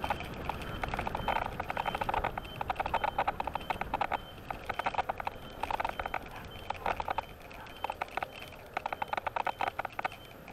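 Electric kick scooter riding along: a steady rumble of wind and tyres on pavement, with repeated bursts of rapid rattling from the scooter and its handlebar-mounted gear over bumps.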